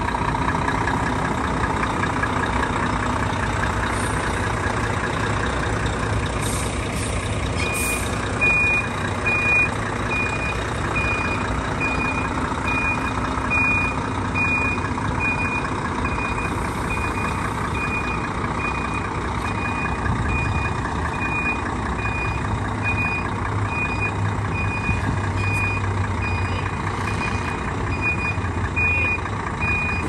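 Volvo FH truck's diesel engine running as the tractor unit manoeuvres, with a couple of short hisses, then its reversing alarm beeping steadily from about eight seconds in.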